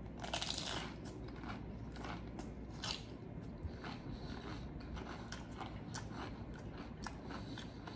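Crunching bites into a ceviche 'sandwich' made with crisp tortilla chips: a loud crunch about half a second in, a second bite just before three seconds, then chewing with small crackles of chip.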